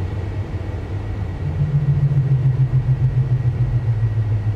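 Simulated Boeing 737 engine and runway rumble from a flight simulator's sound system, heard inside the simulator cab: a steady low rumble, with a low hum that comes in about a second and a half in and sinks slowly in pitch.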